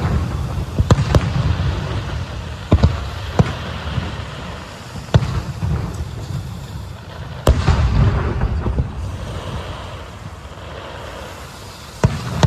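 Aerial fireworks bursting overhead: about seven sharp bangs at irregular intervals, each trailing off into a low rolling rumble.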